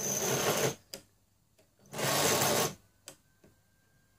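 Model train locomotive motors whirring in two short bursts of under a second each, with a small click after each burst. The double-headed locomotives are straining to pull a train of coaches and seem not strong enough for the load.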